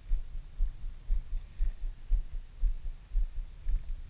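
Low, regular thumping, about two beats a second, while a spinning reel's handle is cranked to retrieve the line.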